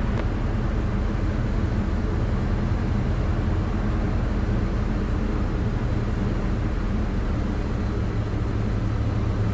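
Cessna 150's Continental O-200 four-cylinder engine running steadily at low power, heard from inside the cabin with a steady rush of airflow over the airframe.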